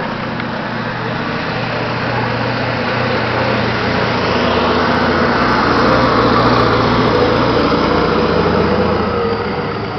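A motor vehicle engine running steadily. It swells to its loudest about six seconds in, then eases off.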